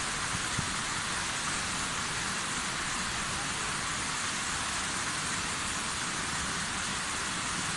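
Minoh Falls, a waterfall, pouring steadily: an even, unbroken rush of falling water, heaviest in the higher range.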